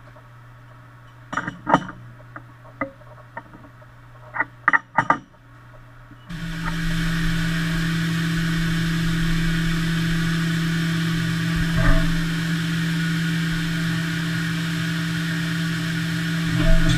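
Haas CNC milling machine: a run of sharp clicks and knocks over a low hum. About six seconds in, the machine starts running, a loud steady hum with a hiss over it that holds level.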